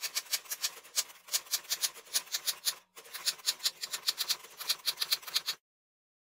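Manual typewriter typing quickly: a rapid run of sharp key strikes, with a short break about three seconds in. The strikes cut off suddenly near the end.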